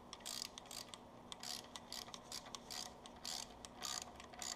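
Ratcheting torque wrench clicking in short runs, roughly two a second, as the oil pan bolts are run down and tightened.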